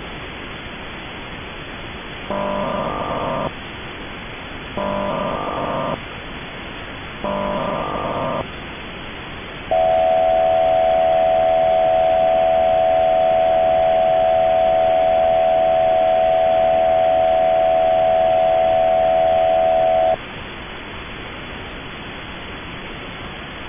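Emergency Alert System SAME header: three short bursts of warbling digital data, about two and a half seconds apart. These are followed by the long, steady EAS attention-signal tone for about ten seconds, all over a steady background hiss.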